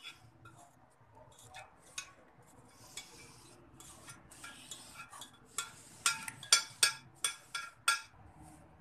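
Metal utensil clinking and knocking against a metal cooking pot of carrot halwa, light clicks at first, then a quick run of about seven sharp knocks in the last three seconds.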